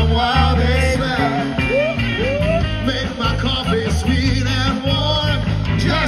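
Live ska band playing at full volume: electric guitars, bass and drums with a horn section of trumpet, saxophone and trombone, and a singer's voice over the top.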